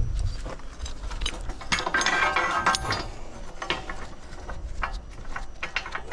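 Rusty steel scaffold coupler being handled and fitted onto a scaffold tube: repeated metal clicks and clinks, with a stretch of grating metal-on-metal scraping about two seconds in.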